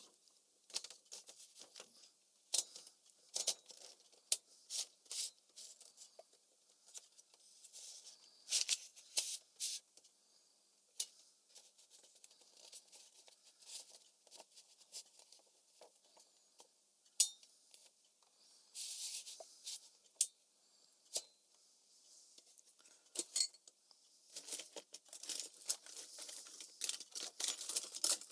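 Smith-Corona Calypso manual typewriter being worked by hand: irregular sharp clicks and short scratchy rasps from its mechanism, thickening into a busy run of clicks near the end.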